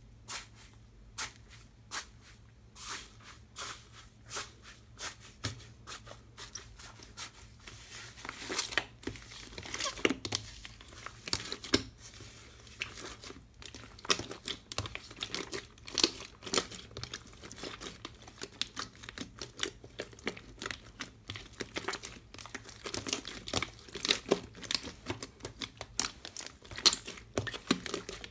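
Slime being squeezed and worked by hand, making crackling, popping clicks. The pops are spaced out at first and come thick and fast from about eight seconds in.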